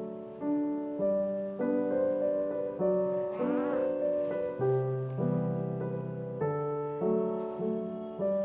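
Soft solo piano background music, single notes and chords struck and left to ring out.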